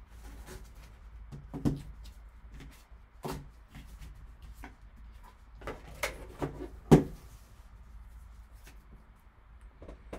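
Gloved hands handling a card box, its foam insert and a hard plastic card case: scattered scrapes and taps with about half a dozen sharp clicks and knocks, the loudest about seven seconds in.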